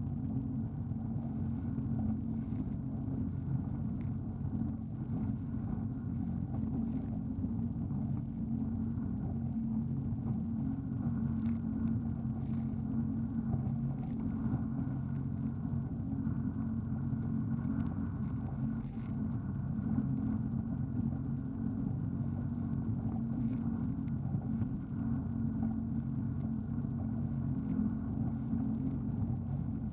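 Jet ski engine running at a steady pitch, a low, even drone.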